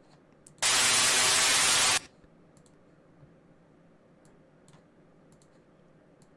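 A recording of soft rain played back through heavy distortion, giving a harsh, static-like hiss that cuts in abruptly about half a second in and stops just as abruptly about a second and a half later. Faint computer mouse clicks before and after it.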